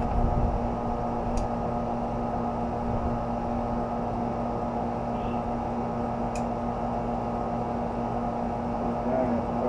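Steady mechanical hum with a constant low tone, and two faint clicks, about a second and six seconds in.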